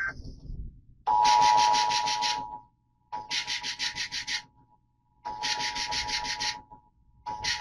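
Emergency Alert System broadcast alert signal: four harsh, buzzing data bursts, each about a second and a half long with short gaps between them, over a steady two-note alert tone.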